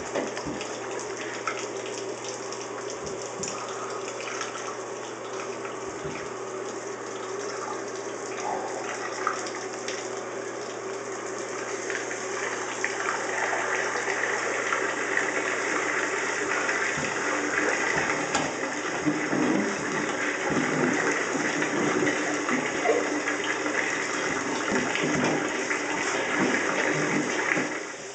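Water running from a bathtub tap into the tub, a steady rush that grows louder about halfway through and drops away sharply near the end, with a few small knocks.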